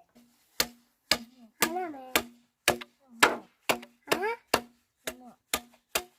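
Rhythmic striking blows, about two a second, each with a short low ringing after it, with a child's voice between a few of them.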